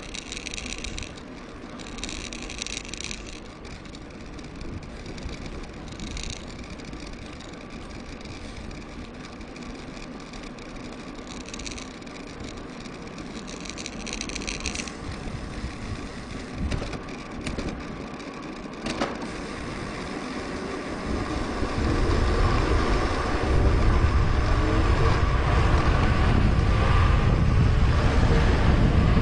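Rushing wind and rolling noise picked up by a mountain bike's action-camera microphone while riding. The wind buffeting grows much louder and deeper about two thirds of the way through.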